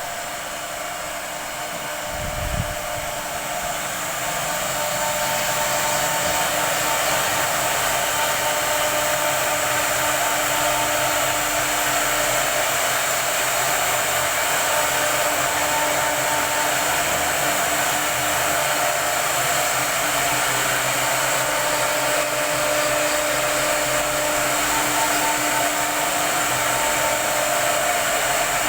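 SUNTOOLS high-speed CNC router running: a steady, even rushing noise with a faint steady whine in it. There is a short knock about two and a half seconds in, and the sound grows louder over the first few seconds before holding steady.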